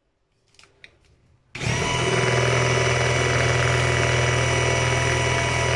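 Electric hand blender switched on about a second and a half in and running steadily at one speed as it mixes cake batter in a plastic bowl.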